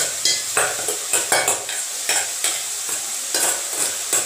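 Chopped green onion sizzling as it drops into hot oil in a steel kadai. Repeated sharp metal taps, about two a second, come from the steel colander being knocked against the pan to shake the onion out.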